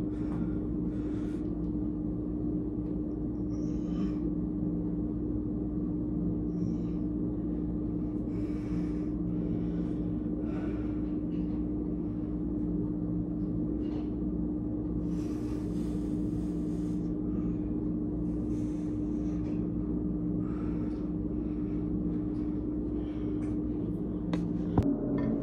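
A steady mechanical hum at one constant pitch with a low rumble beneath it, and short breaths from a man every second or two while he flexes after a workout. There is a single knock near the end as the phone is handled.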